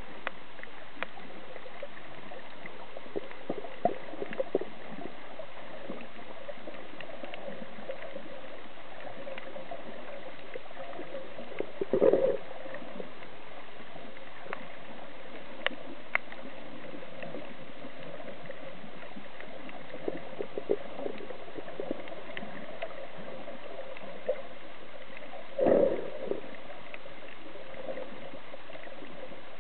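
Underwater sound picked up by a submerged camera while snorkeling: a steady muffled hum of water with scattered small clicks and crackles. There are two brief louder swooshes, about 12 seconds and 26 seconds in.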